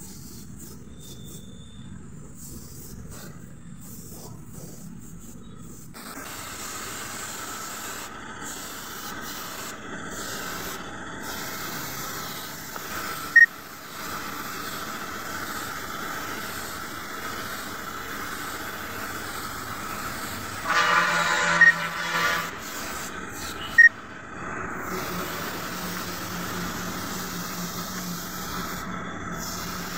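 Compressed-air paint spray gun hissing as it sprays paint, broken and intermittent at first, then a steady hiss from about six seconds in. Two sharp clicks stand out, one about halfway through and one later, and a brief louder pitched tone sounds a little after two-thirds of the way.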